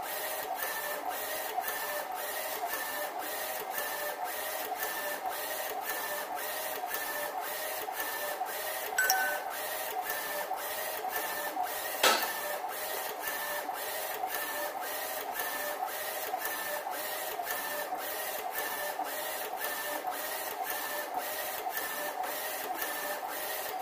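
UV flatbed printer printing on bottles turned by its rotary cylinder attachment: a steady, rhythmic motor whine repeating about twice a second. A short tone sounds about nine seconds in, and a single sharp click, the loudest sound, comes about twelve seconds in.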